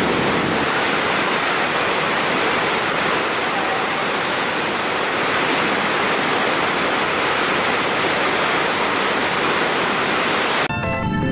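Steady, even rushing of a waterfall with no break. Music comes in shortly before the end.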